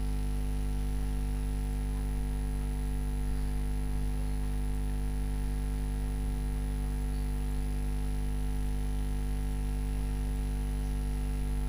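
Steady electrical mains hum: a low, even buzz with a stack of evenly spaced overtones and a faint high steady whine above it.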